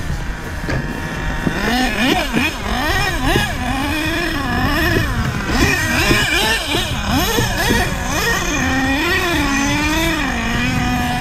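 Radio-controlled model car motor revving up and down in quick, repeated bursts, settling to a steady pitch near the end.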